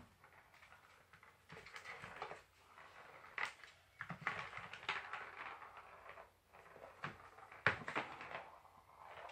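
Scattered knocks, taps and scratches as two kittens scramble over a plastic ball-track cat toy and the laminate floor around it, the sharpest knock about three quarters of the way through.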